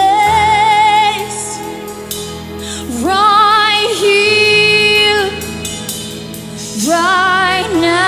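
Live gospel worship music: a lead singer holds long notes with vibrato over a sustained, steady accompaniment, in three phrases.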